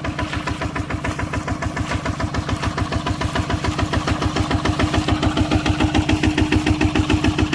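Tractor engine running with an even, rapid pulsing beat, several beats a second, over a steady hum, growing a little louder toward the end.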